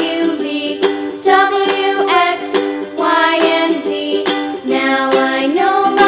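Children's song music with a regular beat.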